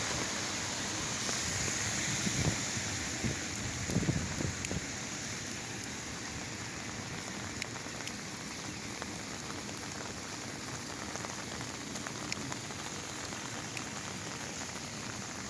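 Heavy rain falling steadily, with many small drops ticking on an umbrella held overhead; it is a little louder in the first few seconds.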